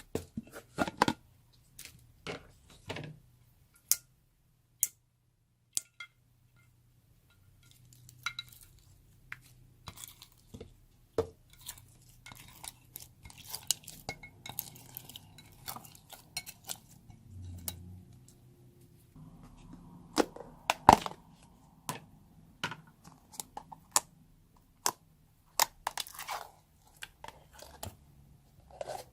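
Hands mixing slime with crunchy foam: irregular crunches, crackles and sharp sticky pops, sparse at times. The loudest is a single snap about two-thirds of the way through.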